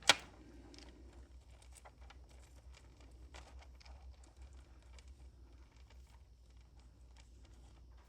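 Small metal clicks and taps as a bolt is tried on the threaded pins of a nut-and-bolt thread gauge, with one sharp click just after the start, over a steady low hum.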